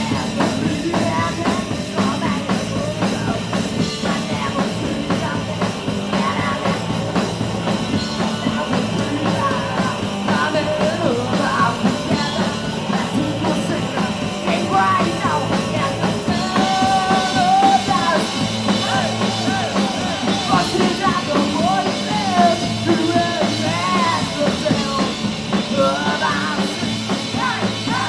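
Live punk rock band playing a song loudly, with guitars and drums driving a fast, steady beat and a voice singing over them.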